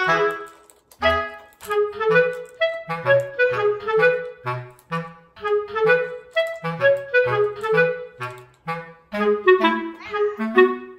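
Background music: a melody of short, separate notes over a lower bass line, moving at a steady, lilting pace.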